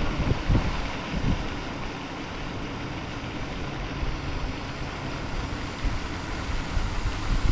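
Wind buffeting the microphone, with a few hard gusts in the first second or so and a steady rush after.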